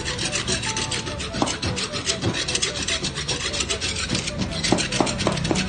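A hand file rasping along the edge of a steel bar in quick, repeated strokes, with a few light knocks of metal in between.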